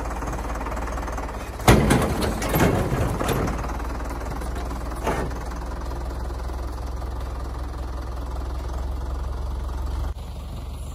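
Tractor engine running steadily while it pulls a truck bed off the frame. About two seconds in there is a loud burst of banging and clattering as the bed breaks loose, and one more bang comes about five seconds in. The engine note drops and gets quieter near the end.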